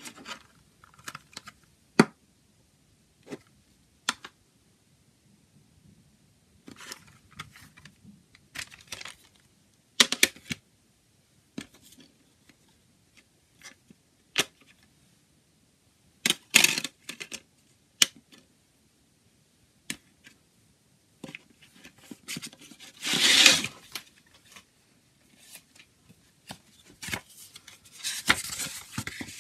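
Plastic CD jewel case being handled and opened: scattered sharp clicks and snaps of the case's hinge, lid and disc tray. A longer scraping rustle comes about two-thirds of the way through, and another paper rustle near the end as the booklet is slid out.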